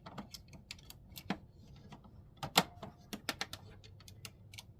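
Irregular sharp plastic clicks and knocks as the black printhead of an HP Smart Tank 5100 printer is pushed and seated into its carriage, the loudest knock about two and a half seconds in.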